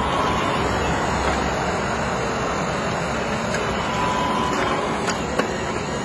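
Remote-controlled scale-model hydraulic excavator working: steady mechanical noise from its pump and motor, with a faint high hum that comes and goes. A couple of sharp clicks about five seconds in.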